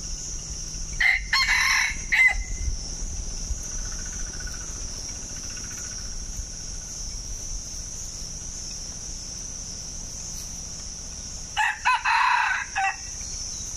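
Red junglefowl rooster crowing twice, about ten seconds apart, each crow about a second long, over a steady high-pitched insect buzz.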